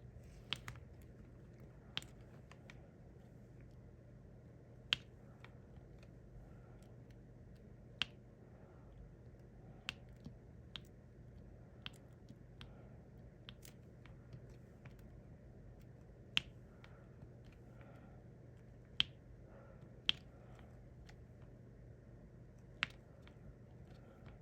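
Sharp, irregularly spaced clicks, one every one to three seconds: a diamond-painting pen tapping resin drills down onto the sticky canvas, over a faint steady hum.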